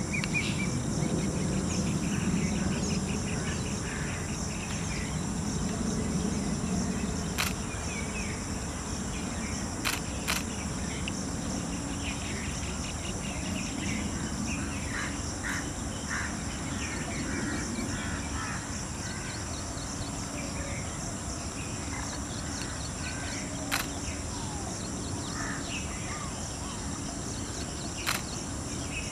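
Outdoor woodland ambience: a steady high-pitched drone of insects, with small birds calling now and then. A handful of sharp clicks stand out.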